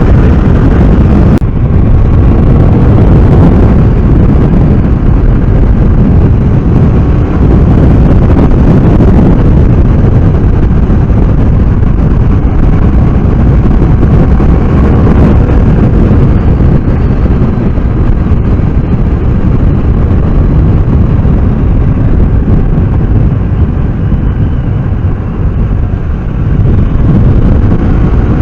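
BMW F800R's parallel-twin engine running at road speed, under heavy wind noise rumbling on the microphone.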